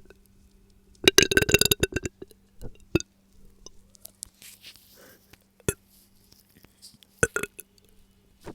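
A woman's loud burp lasting about a second, then a few small clicks and a short, quieter sound near the end.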